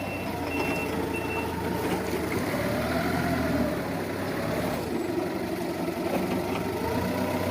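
Forklift engine running steadily, with three short high reversing beeps at the start.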